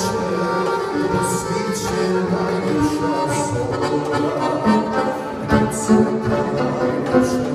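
Accordion and violin playing a folk tune together, with a third instrument joining in.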